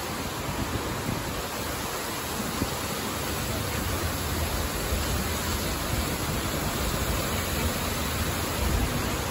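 LaserWash M5 touchless car wash spraying high-pressure water from its overhead gantry and boom arm onto a car: a steady hiss of water jets.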